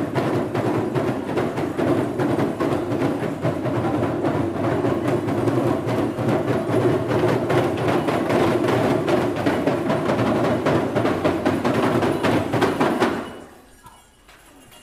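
Small hand drums (Timorese babadok) beaten by a group of dancers in a fast, steady rhythm, stopping suddenly near the end.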